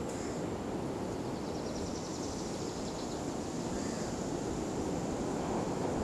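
Steady outdoor ambient noise: an even, low rushing sound with no distinct events.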